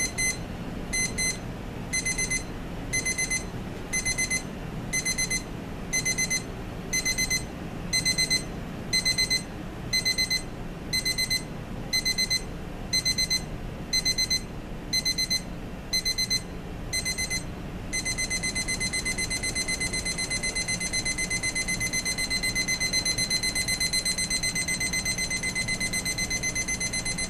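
Elgin 3502E digital travel alarm clock's electronic alarm sounding: a high-pitched beep repeated in short groups, switching about 18 seconds in to continuous rapid beeping that grows slightly louder, as its ascending alarm steps up.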